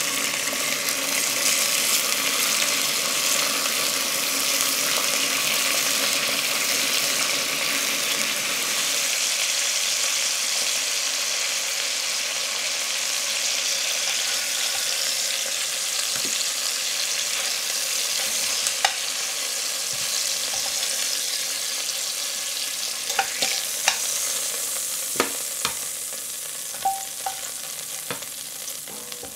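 Chicken thighs sizzling steadily as they sear in hot oil in an enamelled cast-iron pot. Over the last few seconds the sizzle eases, and metal tongs give a few sharp clicks against the pot as the pieces are moved.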